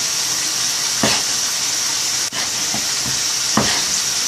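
Steady sizzle of young potatoes frying in deep oil, with knife strokes onto a wooden cutting board as a king oyster mushroom is sliced, the sharpest about a second in and near the end.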